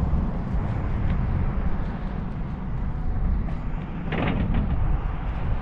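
Wind buffeting the microphone in a steady low rumble, with the faint whine of the RC Sbach stunt plane's electric motor and propeller in the distance; a brief louder rush comes about four seconds in.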